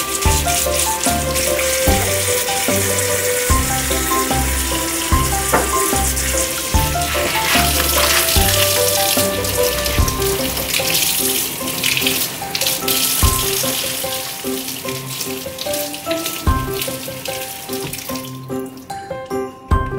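Kitchen tap water running and splashing into a stainless steel sink as vegetables are rinsed and brushed under the stream. The water stops near the end. Background music plays throughout.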